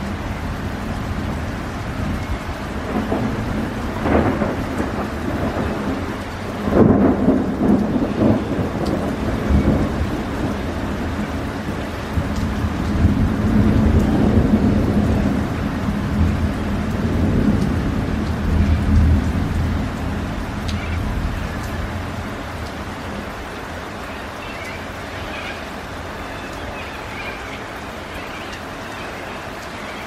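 Thunderstorm: rain falling steadily, with a sharp thunderclap about four seconds in, then a louder peal about seven seconds in that rumbles on in swells for over ten seconds before dying away to the rain alone.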